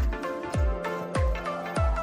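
Electronic background music with a steady deep kick-drum beat, about one every 0.6 s, under held synth tones.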